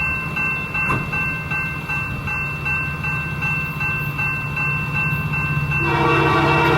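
Railroad crossing bell ringing in a fast, even rhythm over the low rumble of a train. Near the end the locomotive's horn comes in as a sustained chord.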